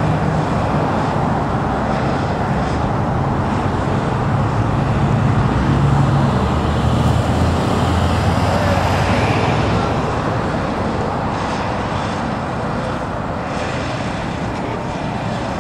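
Traffic on a multi-lane highway: cars and pickup trucks passing, a steady rush of tyres and engines with a low engine hum. It is loudest about six to eight seconds in, as a vehicle drives close by, then eases a little.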